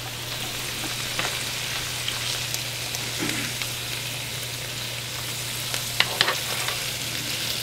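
Pieces of fine-tooth shark frying in a pan: a steady sizzle over a low hum, with a few light clicks.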